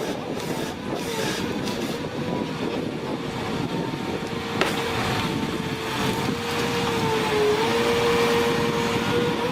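Heavy machinery running: a steady mechanical whine over dense engine rumble, with one sharp knock about halfway through and the running growing louder near the end.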